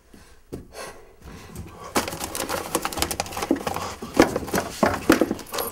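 Rummaging through an office desk and its drawers: a busy, irregular clatter and knocking of objects being shifted, starting about two seconds in.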